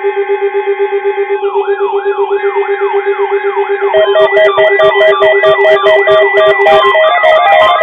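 Electronic alert tones layered into a siren-like alarm. A fast-pulsing steady low tone is joined about a second and a half in by a repeating wailing sweep, about three a second. About four seconds in, more tones and a clicking beat come in on top.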